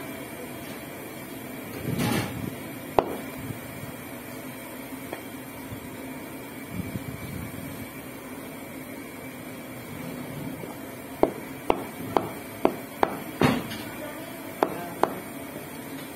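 Heavy cleaver chopping goat meat on a round wooden chopping block: one sharp chop a few seconds in, then a run of about eight sharp chops, roughly two a second, in the second half.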